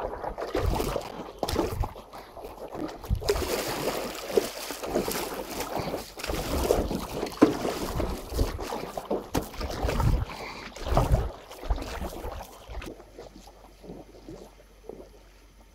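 Stand-up paddleboard being paddled: water splashing and sloshing with the paddle strokes and against the board, with wind buffeting the microphone in irregular low thumps. It falls much quieter about thirteen seconds in.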